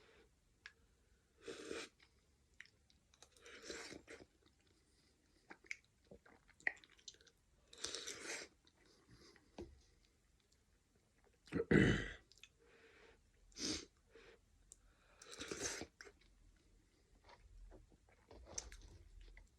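A person eating chicken noodle soup close to the microphone: short bursts of chewing and mouth noises every couple of seconds, with quiet between. The loudest is a heavier thump about twelve seconds in.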